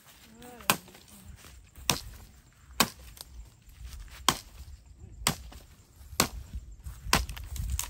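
Machete chopping branches on the ground: about eight sharp chops, roughly one a second.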